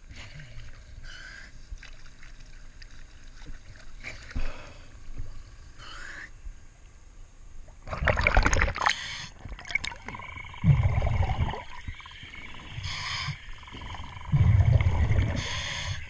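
Light water sloshing at the surface, then a splash about eight seconds in as a diver goes under. After that, breathing through a diving regulator underwater: exhaled bubbles rumble twice, with a hissing inhale between them.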